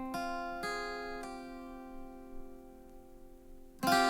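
Background music: acoustic guitar strummed a few times, the chords ringing out and fading, with a louder strum near the end.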